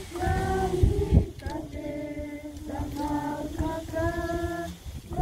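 A group of children and women singing a worship song together in held, sustained phrases. A couple of low thumps come about a second in.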